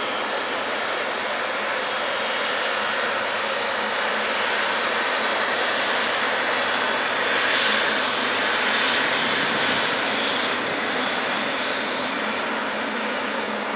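Boeing 777-300ER's twin GE90-115B turbofans running at taxi power: a steady jet roar and whine that swells to its loudest a little over halfway through as the airliner passes, then eases.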